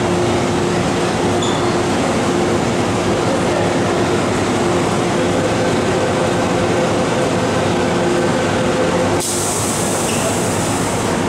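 An MTR M-Train metro train standing at an underground station platform, its onboard equipment humming with a steady mix of tones over a noisy bed. About nine seconds in, a high hiss starts suddenly.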